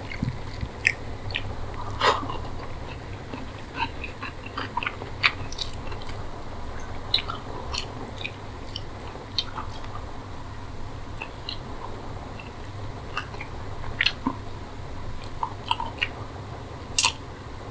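Close-up eating sounds of chicken curry and rice eaten by hand: chewing and biting with many short, wet clicks, and fingers working the rice on a steel plate, over a faint, steady low hum.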